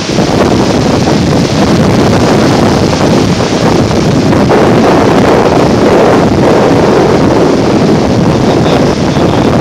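Heavy wind buffeting the microphone over ocean surf breaking and washing around the hull of a beached boat.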